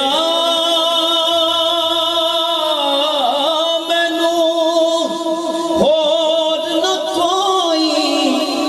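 A male singer holding long, drawn-out notes of a devotional kalam, the pitch wavering slightly and sliding down briefly about three seconds in and again near six seconds.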